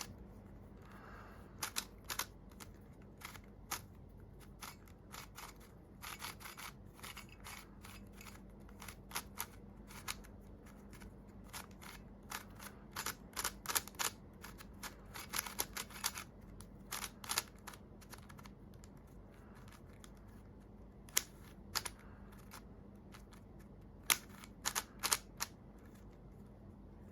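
YJ YuHu V2 M magnetic speed cube being turned by hand: irregular sharp clacks of the layers snapping into place, some single, some in quick runs of several turns.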